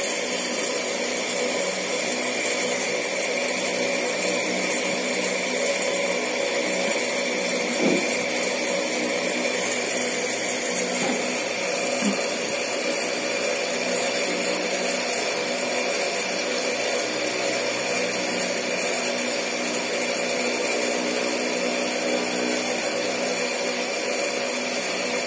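Steady mechanical whir of an electric motor, like a fan or small appliance, with a thin high whine over it and no change in level.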